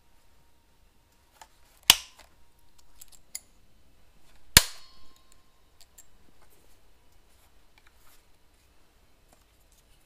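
Handling of an Echo CS-590 chainsaw: two sharp clacks of its plastic and metal parts, about two seconds in and again near the middle, the second leaving a brief metallic ring, with lighter clicks and rattles between and after.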